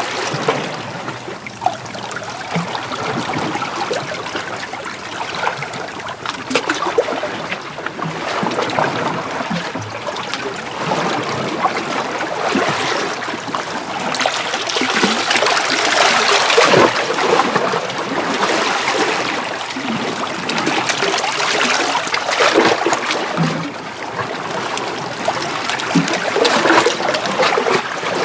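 Small sea waves washing in and out over shoreline rocks. The wash swells and falls back every few seconds.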